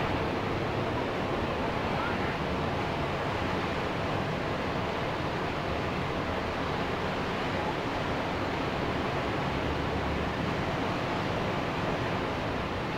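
Ocean surf washing onto a beach in a steady, even rush of water.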